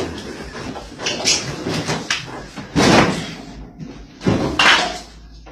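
Refrigerator door being yanked open and slammed shut over and over: about four loud bangs roughly a second apart, with rattling and clattering between them.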